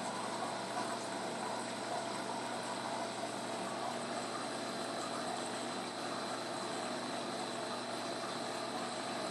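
Steady hum and rush of a reef aquarium's running equipment, its pumps and circulating water, with a faint steady high whine above it.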